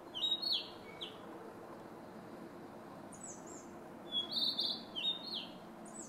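Male Narcissus flycatcher singing: two short phrases of quick, clear notes, one right at the start and another about four seconds in.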